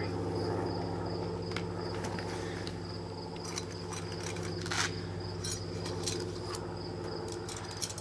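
Insects, crickets, chirring steadily in a high, even tone over a steady low hum, with scattered clicks and rustles from a folding solar panel's stand pouch and aluminium rods being handled, the loudest about five seconds in.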